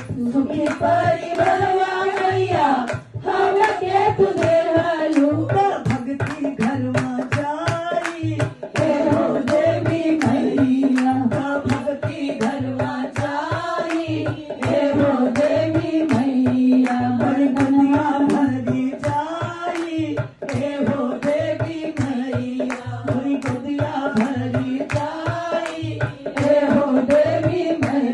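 Women singing a Bhojpuri devotional bhajan, a lead voice through a microphone with others joining, over hand clapping and a dholak drum keeping a steady beat.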